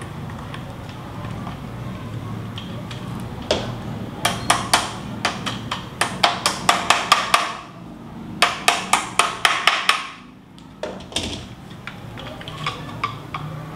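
Two quick runs of sharp metal taps and clicks, about four a second, starting about three and a half seconds in and again about eight seconds in. They come from a hand tool working the locking pin into a ceiling fan's downrod.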